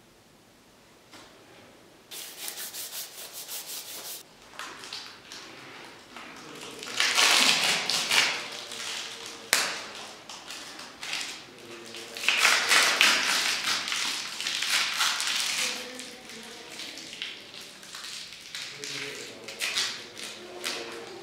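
Scratchy rubbing and rustling: a quick run of even strokes about two seconds in, then two longer, louder spells of rustling.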